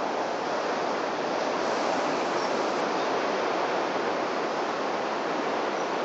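Steady, even rush of sea surf, with no distinct knocks, engine notes or other events standing out.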